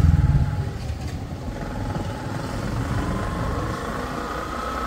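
Bajaj Platina motorcycle's single-cylinder engine running while the bike rides along. It is louder for the first half-second, then settles to a steady lower rumble, and a faint rising whine comes in during the last couple of seconds.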